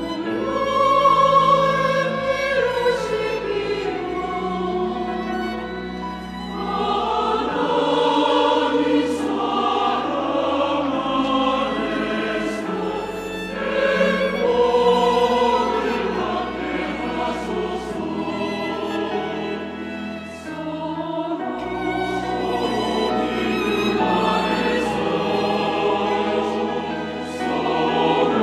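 Church choir singing a sacred anthem, several voices together, over sustained low accompaniment notes that shift every couple of seconds.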